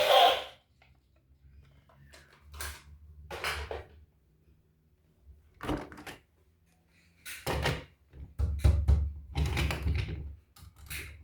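Scattered short knocks and rustles of objects being handled, with a faint low hum under some of them. The knocks come more thickly and more loudly in the last few seconds.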